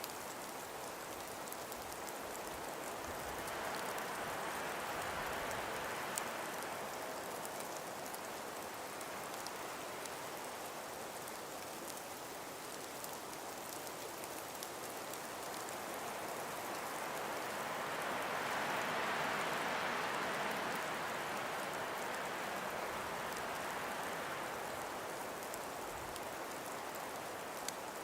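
A calm breeze blows through frost- and ice-covered forest trees as a steady rush. It swells in two slow gusts, one about five seconds in and a longer one around two-thirds of the way through.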